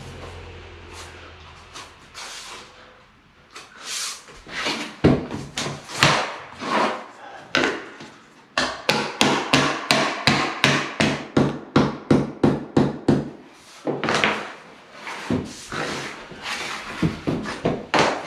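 Hammer knocking a block against the edge of click-together waterproof vinyl floor planks to drive the joints tight: a few scattered knocks, then a steady run of about four knocks a second for around five seconds, then more scattered knocks.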